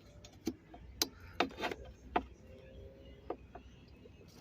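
About half a dozen sharp clicks and light knocks, most of them in the first two and a half seconds, from hands fitting the fuel injectors, their metal clips and the fuel rail on the engine. A low hum runs underneath.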